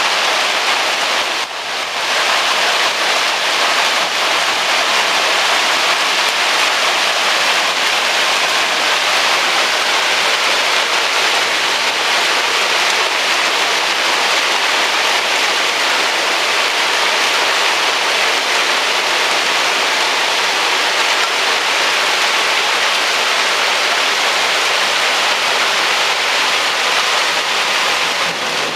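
Heavy thunderstorm rain pouring steadily, a dense even hiss with a brief dip about a second and a half in.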